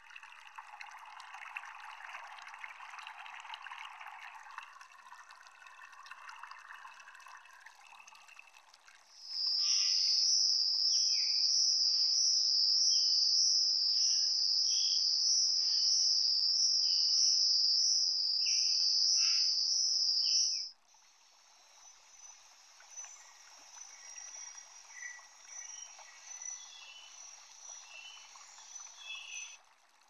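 Tropical forest nature soundscape. It opens with a steady hiss. About nine seconds in, a loud, high, steady insect trill starts, with short chirping calls beneath it, and it cuts off suddenly about eleven seconds later, leaving a quieter hiss with faint high calls.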